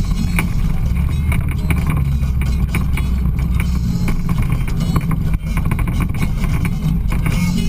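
Side-by-side UTV engine running under way over a rough trail, a steady low rumble with frequent knocks and rattles from the bumps.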